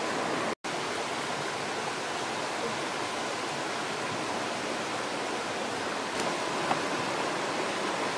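A shallow rocky stream rushing and splashing over stones, a steady, even noise, with a split-second gap about half a second in.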